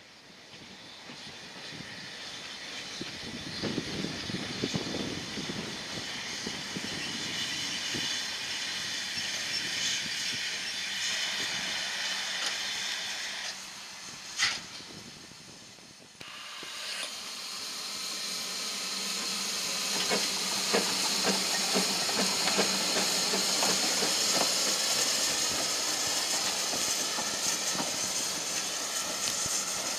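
Narrow-gauge steam locomotive hissing steam as it moves slowly, the hiss building over the first half. A short sharp sound comes about halfway through. After a break the hiss comes back louder, with irregular knocks.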